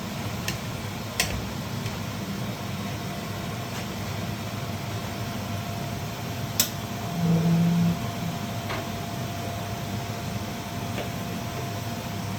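Steady low mechanical hum, with a few sharp clicks and a short, louder low buzz lasting under a second about seven seconds in.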